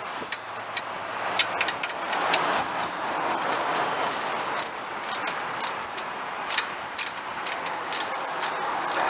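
Irregular sharp metal clicks of a wrench working a bolt on a garden tractor's plow mounting bracket, over a steady rush of wind on the microphone.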